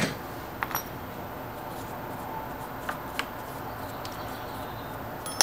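A few light clicks and taps as a hand handles the radius-cutting attachment on a miniature lathe, over a steady low background hum. A sharper metallic clink comes near the end.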